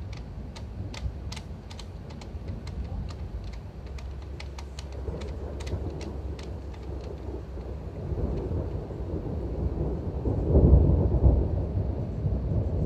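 Thunder rumbling, building through the second half and loudest near the end. Scattered sharp ticks of raindrops are heard over the first half.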